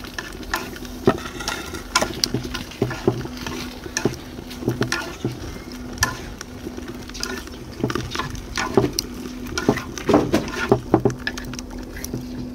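Wooden chopsticks stirring marinated pork slices in an earthenware pot over a wood fire, making irregular clicks and scrapes against the clay, with the meat sizzling underneath.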